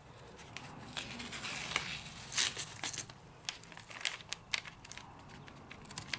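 Masking tape being peeled up from a painted surface along with the newspaper masking, giving irregular crinkling and short tearing crackles that start about a second in.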